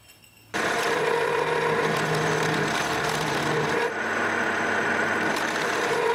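Milling machine face-milling a metal block with an indexable face mill: the inserts cutting steadily over a steady hum from the spindle drive. It starts suddenly about half a second in.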